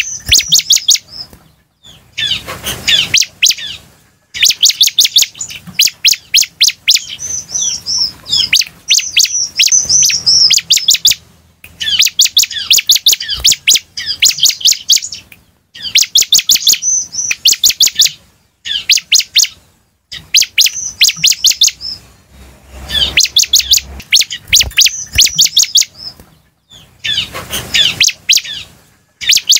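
Bar-winged prinia (ciblek) song: loud phrases of very rapid, high, ticking chirps, each lasting a few seconds, repeated again and again with short pauses between them.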